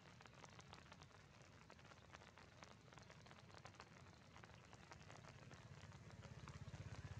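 Faint steady rain, with many small drops ticking on stone and leaves, over a low rumble that swells near the end.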